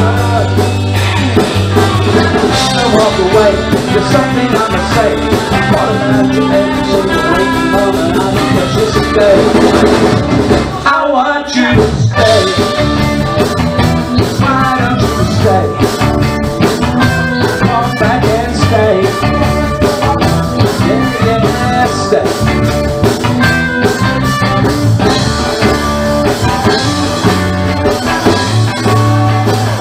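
Live rock band playing, with electric guitars to the fore. About eleven seconds in, the band stops for a split second and then comes straight back in.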